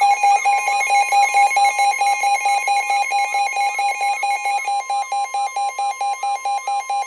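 Emergency alert tones: a steady attention tone near 1 kHz, layered with a rapid electronic beeping about four beeps a second and a fainter siren-like tone that rises and falls. The beeping and the steady tone stop abruptly at the end.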